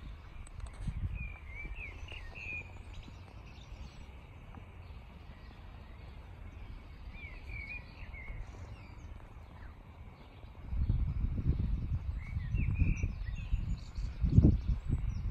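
Small birds calling in short chirping phrases, three times, over a low gusty rumble of wind on the microphone that grows much louder about two-thirds of the way through.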